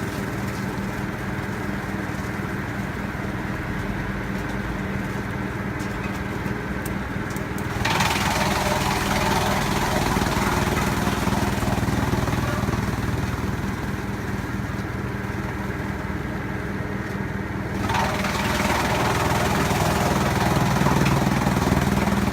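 Wood chipper's engine running at a steady pitch, with a louder rushing, grinding noise that comes in suddenly for several seconds and then again near the end, as the machine works under test.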